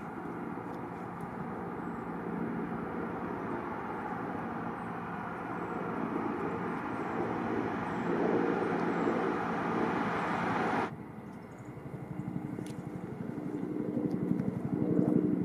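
Motor vehicle engine and road noise running steadily and growing louder, then cutting off suddenly about eleven seconds in, followed by a quieter low engine hum with a fine regular pulse.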